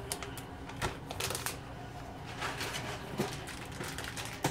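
Kitchen handling noises: a plastic snack package rustling, with a scatter of light clicks and taps as small items are picked up and set down on the counter.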